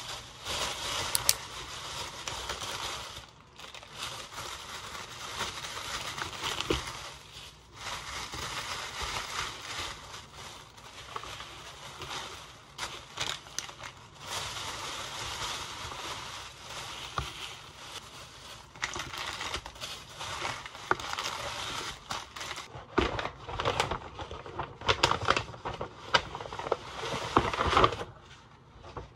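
Thin plastic carrier bag crinkling and rustling as plastic-wrapped bagels are lifted out and set down on a counter. Near the end a paper shopping bag is handled, with sharper separate crackles.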